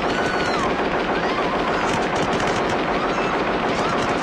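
ED-209 enforcement robot's twin arm-mounted guns firing in one long, unbroken burst of rapid automatic fire, a film sound effect.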